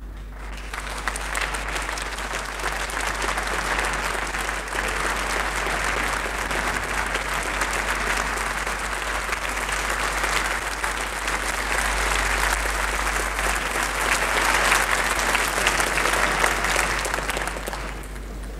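Concert-hall audience applauding on a 1976 live radio broadcast recording, starting about half a second in and dying away near the end. A steady low hum runs underneath.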